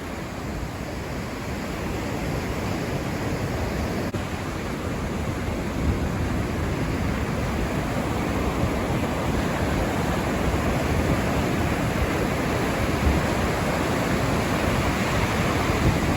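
Ocean surf breaking on the beach with wind blowing across the microphone: a steady rushing noise that grows slightly louder.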